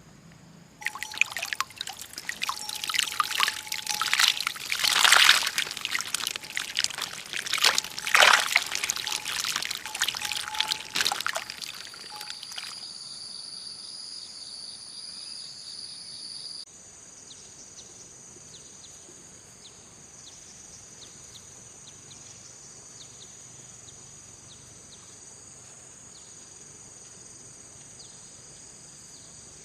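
Water splashing and pouring in irregular surges for about eleven seconds. It then gives way to insects, crickets or cicadas, droning in steady high-pitched tones with a fast pulse; the drone changes abruptly partway through.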